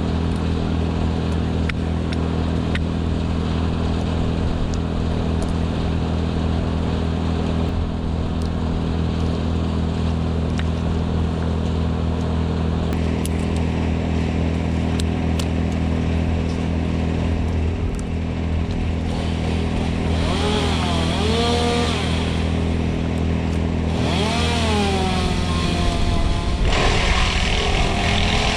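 Small petrol engine running steadily, its pitch swinging up and down twice in the last third.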